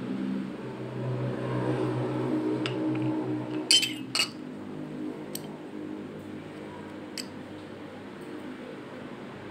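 A steady low mechanical hum that drops in level about four seconds in, with a handful of sharp metallic clinks, two of them close together about four seconds in.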